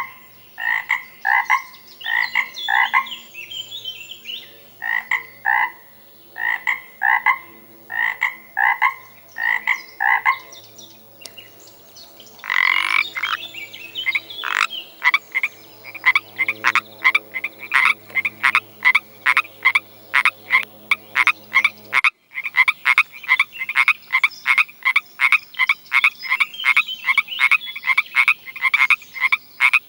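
Frogs croaking: short calls repeated in runs, then from about twelve seconds in a quicker train of croaks, roughly two or three a second. About two-thirds through the recording changes abruptly and the calls carry on thick and fast.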